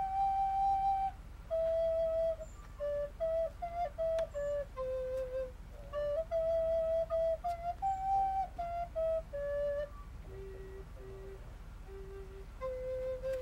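Music: a single flute-like wind instrument playing a slow melody of held notes, one note at a time, with brief pauses between phrases.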